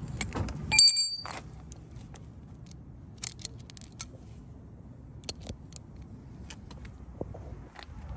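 Metal hand tools clinking: a short, bright metallic ring about a second in, then scattered light clicks and taps.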